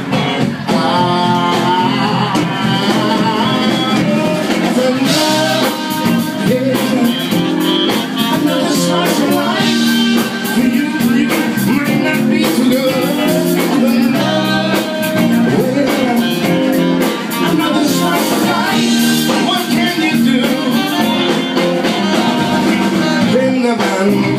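Live blues band playing an instrumental break: a saxophone solo over electric guitar and the rest of the band.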